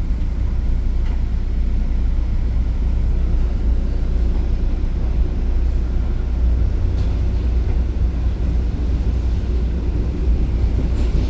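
Steady low rumble of a moving EXO commuter train, heard from inside the passenger car.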